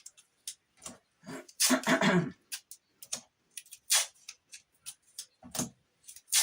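Strips of tape being pulled off a roll and torn, one longer pull about two seconds in, with many small clicks and taps of handling in between.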